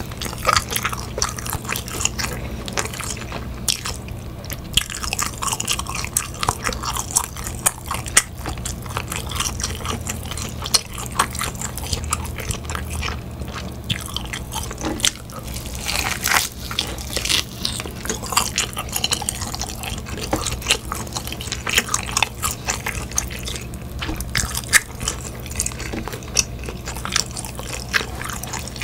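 Close-miked eating: teeth biting and tearing meat off an oven-roasted turkey leg and chewing it, a dense run of small clicks and crackles. A steady low hum runs underneath.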